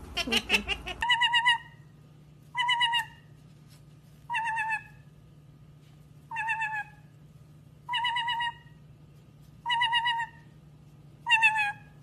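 White-bellied caique repeating the same short, wavering, warbling call seven times, about once every one and a half to two seconds, over a faint steady hum. A few quick chirps from another bird come just before the first call.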